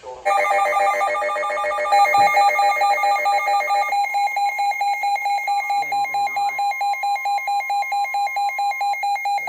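Weather alert radios going off for a new severe thunderstorm warning: a loud electronic alarm beeping rapidly, several pulses a second. A second, denser alarm overlaps it for the first four seconds.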